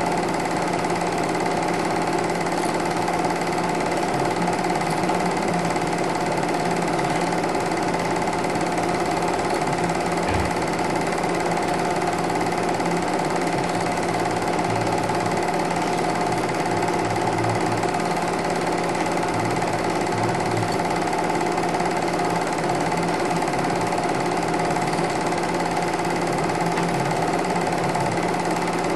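Super 8 film projector running steadily: a constant mechanical hum with fixed tones and no change in level.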